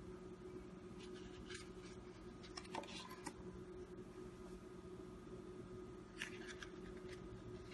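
Faint handling noises of a Rokit F-One flip phone turned over in the hands: a few light clicks and rubs of its plastic casing against fingers, in small clusters. A steady faint hum runs underneath.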